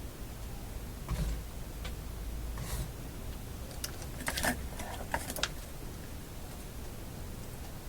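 Small tool clicks and scrapes on a tube radio chassis as a capacitor is worked loose from its terminal block, the busiest cluster about four to five and a half seconds in, over a low steady hum.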